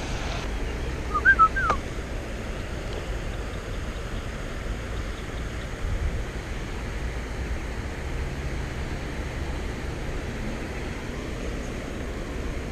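Steady rushing of water spilling over a concrete canal weir. About a second in, a bird gives a short call of three or four quick whistled notes.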